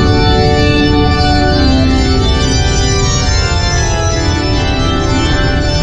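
Organ music playing sustained, slowly changing chords over the low rumble of the ore-car train running along its track.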